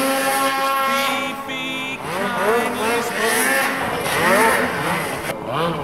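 Polaris Pro RMK 800 snowmobile's two-stroke engine revving up and down as the sled carves through deep powder, its pitch swelling and falling over and over.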